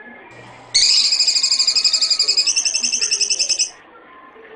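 White Asian house shrew giving a loud, high-pitched, rapidly pulsing trill much like a bird's call, starting about a second in and lasting about three seconds, jumping up in pitch partway through.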